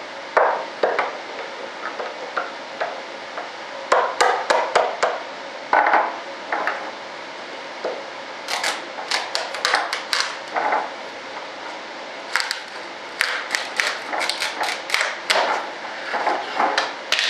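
Hammer tapping a pry tool wedged under a parting board to work it loose from a mold, in irregular clusters of sharp, light taps with short pauses between.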